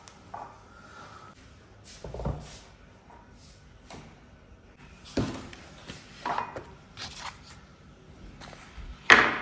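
Scattered household handling noises in a small room: soft knocks, bumps and rustles at irregular intervals, with the loudest knock near the end.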